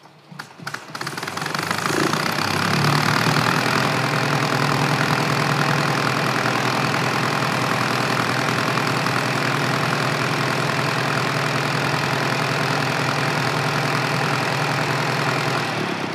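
1940s Kohler automatic electric light plant (generator set) starting on its own when a load is switched on: a few clicks, then the engine cranks and catches over about two seconds and runs steadily. Right at the end it begins to wind down as the load is switched off, the sign that the automatic start and stop is working.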